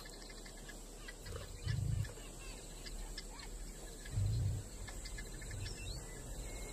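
Faint bush ambience with small, short bird or insect calls, broken by two low, dull thumps about two and four and a half seconds in.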